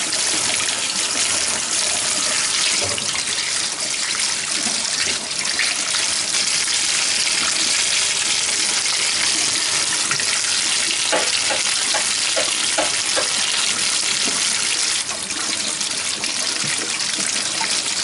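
Kitchen tap running in a steady stream into a stainless steel sink, the water splashing over hands and hard-boiled eggs being peeled in a plastic colander.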